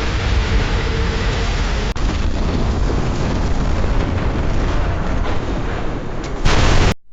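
Sound-effect explosion boom: a loud, continuous deep rumbling blast with a brief break about two seconds in, ending in a brighter hissing burst that cuts off suddenly near the end.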